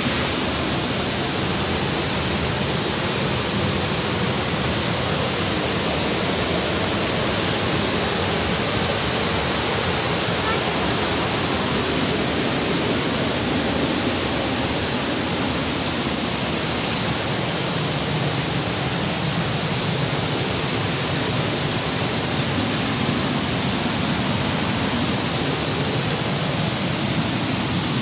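Rushing stream water, a loud, steady, even hiss that does not change.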